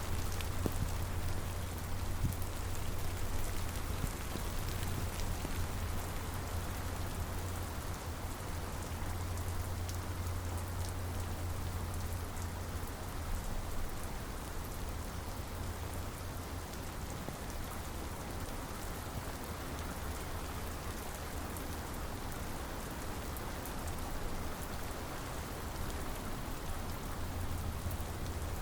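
Steady rain falling, with scattered individual drops ticking over an even hiss and a steady low rumble underneath.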